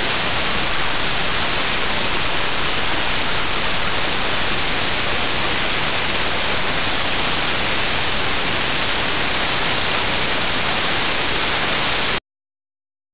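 Loud, steady static-like hiss with no distinct sounds in it, which cuts off abruptly into silence about 12 seconds in.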